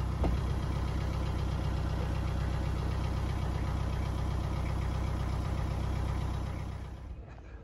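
Narrowboat's diesel engine running steadily with an even chugging pulse, the boat moving slowly under way; the sound drops away about seven seconds in.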